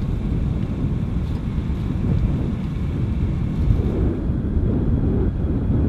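Wind buffeting the microphone outdoors: a loud, gusty low rumble with no clear engine tone, its fainter upper hiss dropping away about four seconds in.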